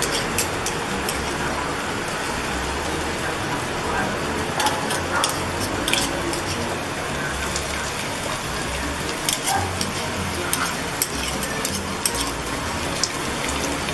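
Mackerel balls frying in hot oil in an aluminium wok: a steady sizzle, with scattered sharp clicks as spoonfuls of mixture are shaped and dropped in.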